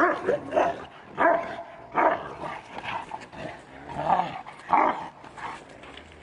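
Kangal shepherd dog barking at wolves through an enclosure fence, a series of short barks about once a second.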